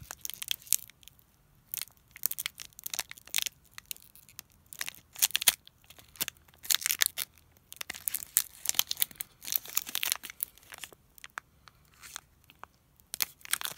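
Foil booster-pack wrapper crinkling and tearing as it is opened by hand, in short irregular crackles with brief pauses between them.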